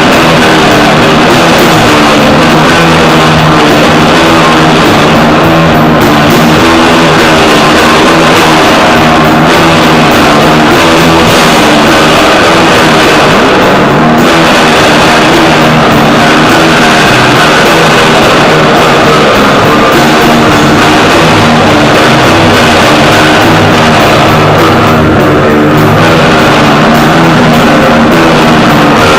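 Loud rock band playing: guitars over a drum kit, dense and unbroken throughout.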